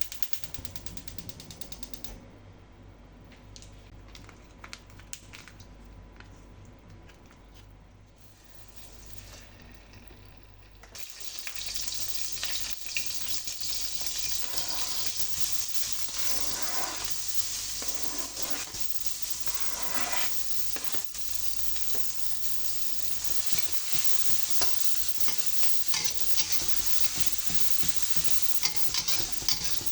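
Food frying in a pan of hot oil. Quiet at first with a few light clicks, then a loud, steady sizzle starts suddenly about eleven seconds in as ingredients go into the hot pan, with stirring on top.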